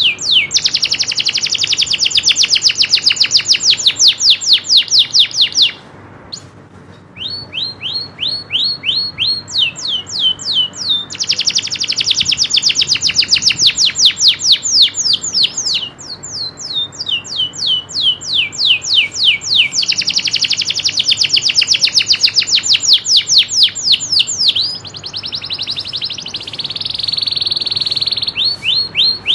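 Domestic canary (local Indonesian kenari) singing. Runs of quick repeated sweeping notes build into long, fast rolling trills, three of them several seconds each, with a short pause about six seconds in and a high buzzing trill near the end.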